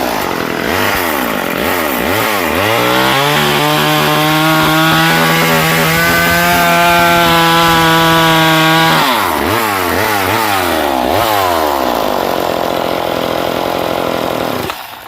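Vintage Poulan Super 25DA two-stroke chainsaw running. The throttle is blipped rapidly for the first few seconds, held wide open at a steady high pitch for about six seconds, then blipped again before the saw runs lower and shuts off suddenly near the end. It still runs great despite a once-stuck piston, a scarred cylinder and about 110 pounds of compression.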